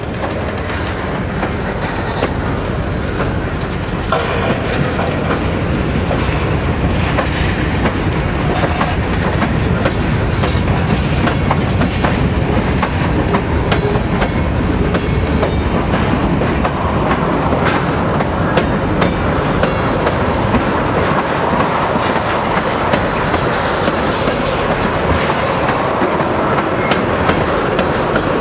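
Norfolk Southern freight train's covered hoppers and tank cars rolling steadily past close by, steel wheels clicking over the rail joints.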